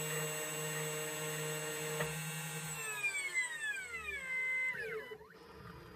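2M2 Tank CNC key cutting machine's spindle motor running with a steady whine, then winding down in a falling whine about three seconds in and stopping: the key cut is finished.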